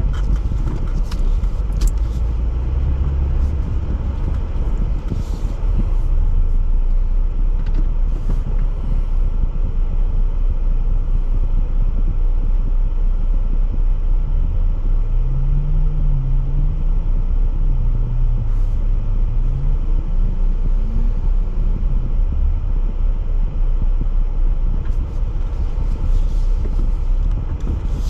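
Jeep driving off-road over a steady heavy low rumble. Its engine note rises and falls several times as the throttle changes, mostly in the second half.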